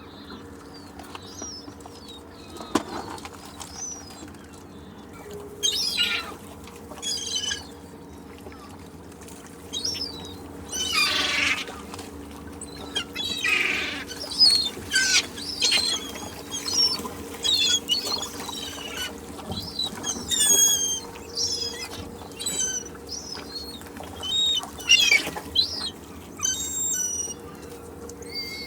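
Seagulls calling repeatedly, short falling cries coming in quick clusters, sparse at first and then near-continuous from about a third of the way in, over a faint steady low hum.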